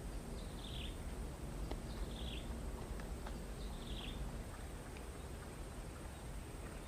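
A bird calling outdoors: a short, high, downward-sliding call repeated three times about a second and a half apart, stopping about four seconds in.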